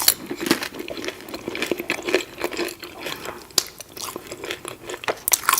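Close-miked chewing of waffle fries: a steady run of wet mouth clicks and soft crunches.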